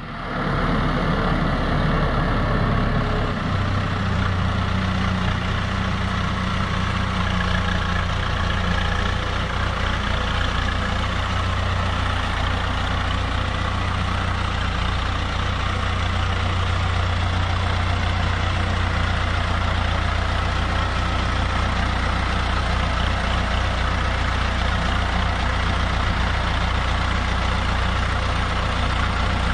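Komatsu PC16 mini excavator's diesel engine running steadily.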